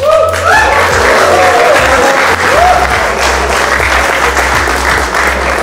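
Audience applauding an award announcement, with background music running underneath.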